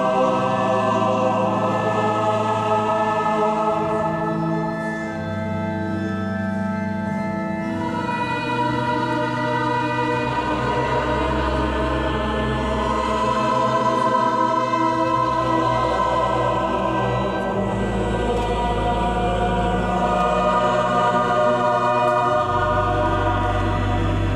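A choir singing slow, sustained chords, the harmonies held for several seconds and then changing, with deep bass notes coming and going.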